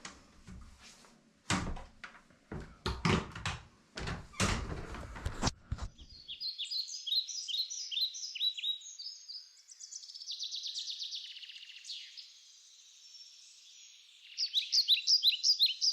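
Several knocks and thuds, like a door or wooden items being handled, over the first six seconds, then birdsong: runs of high chirps that quicken into rapid repeated notes near the end.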